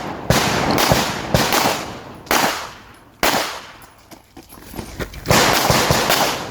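Pistol gunfire on a range: a string of sharp shots at uneven spacing, some coming in quick pairs, each with a short echoing tail.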